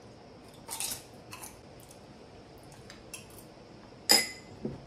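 Crunching bites on a crisp homemade potato chip, a few short crackly crunches, then a single sharp clink with a brief ring about four seconds in, the loudest sound.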